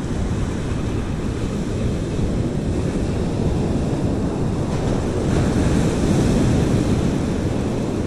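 Wind buffeting the microphone over the wash of breaking surf, swelling a little just past the middle.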